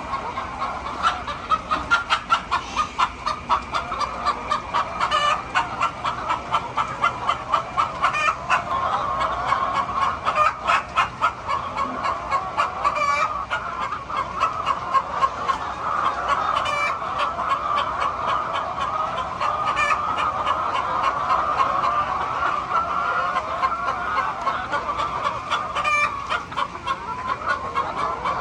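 A flock of hens clucking and cackling together in a continuous busy chorus, with rapid repeated clucks throughout and a few louder, higher calls standing out.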